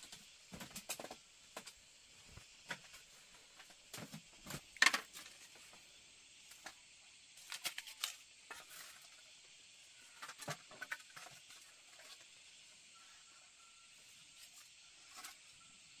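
Scattered light knocks, clicks and rustles in small clusters, the sharpest about five seconds in, over a steady high hiss.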